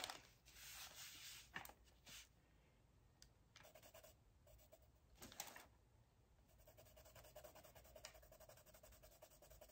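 Faint scratching of a Derwent Drawing coloured pencil shading a swatch on sketchbook paper, in short irregular strokes.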